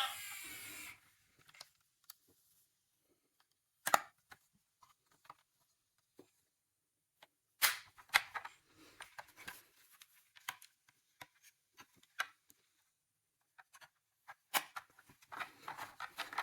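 Scattered light clicks and knocks of small plastic toy cars being handled, the sharpest about 4 s, 8 s and 15 s in, with clusters of faint ticks between.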